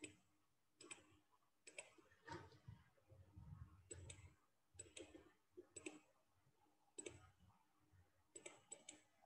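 Computer mouse clicking, scattered single and quick double clicks about once or twice a second over near silence.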